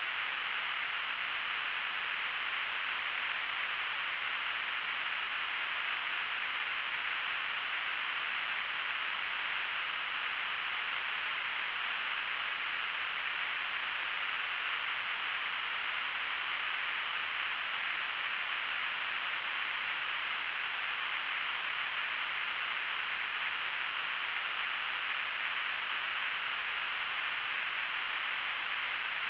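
Steady static hiss, a thin, high-sounding noise that does not change.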